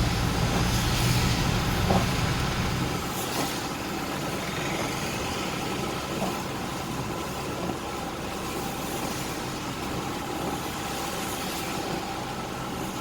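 Street traffic: a motor vehicle's engine running close by with a low rumble that falls away about three seconds in, leaving a steady hiss of passing traffic.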